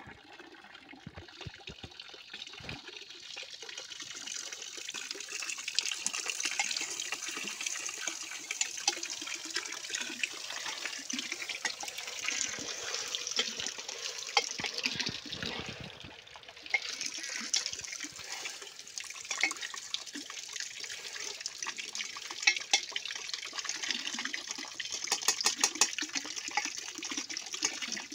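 Water running and splashing steadily, with a cluster of sharp clicks near the end.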